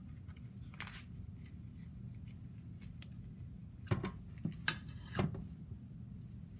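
Serving spoon scraping against a metal mixing bowl while scooping cooked, flaked salmon. There is one short scrape about a second in, then several quick scrapes and clinks around four to five seconds in, over a steady low hum.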